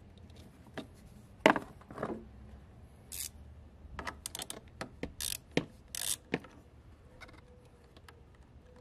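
Wrench loosening a car battery's terminal clamp, then the clamp being worked off the post: an irregular run of sharp metal clicks and short scrapes.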